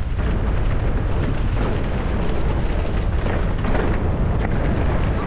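Wind buffeting a ride-mounted camera microphone in a steady loud rumble as a mountain bike runs along a stony dirt singletrack, with faint clicks and crunches from the tyres on loose stones.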